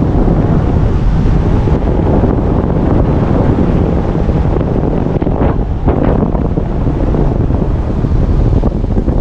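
Car driving along a road: steady road and wind noise with a low rumble, with two short swells of hiss about five to six seconds in.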